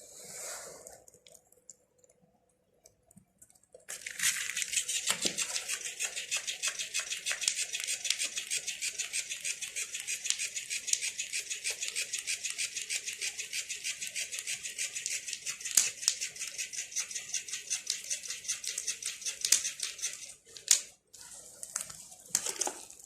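A cat eating: a fast, even run of small crisp mouth sounds that starts about four seconds in and stops a few seconds before the end, followed by a few separate clicks.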